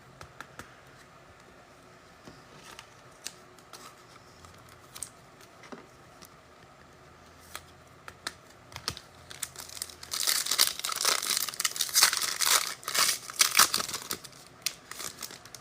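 Trading-card pack wrapper crinkling loudly as it is torn open, about ten seconds in, after a stretch of faint clicks from cards being handled.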